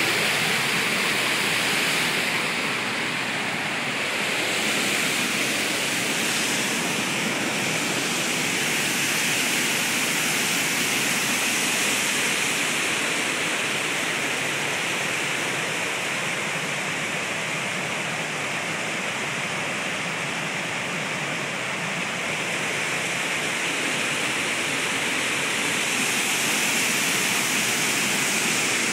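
Waterfall and river rapids: a steady, loud rush of white water.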